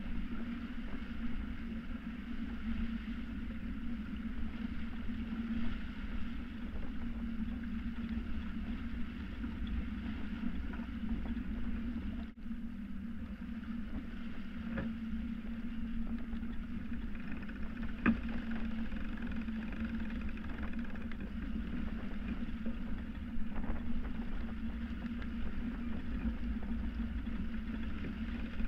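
Water rushing along the hull of a Hanse 355 sailing yacht heeled under sail, with wind noise, a steady low hum and a couple of sharp clicks near the middle.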